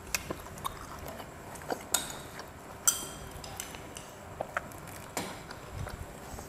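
Metal fork and spoon clinking and scraping against a plate and a glass during a meal: scattered light taps and clicks, with a few sharper ringing clinks, along with faint eating sounds.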